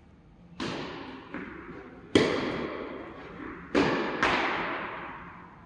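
Tennis rally: a ball struck by rackets, four sharp pops and a softer knock between the first two, each ringing out in a long echoing decay. The loudest hit comes about two seconds in.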